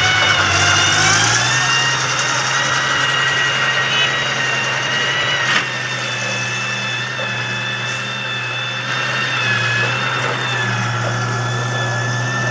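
An engine idling steadily, with a high whine over its low hum. There is a brief knock about five and a half seconds in, after which it runs a little quieter.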